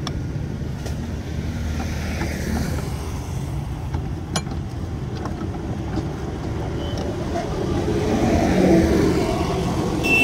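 Steady low drone of motor-vehicle engines running nearby, swelling about eight seconds in, with a few sharp metallic clicks from a hand-lever juice press squeezing pomegranate halves.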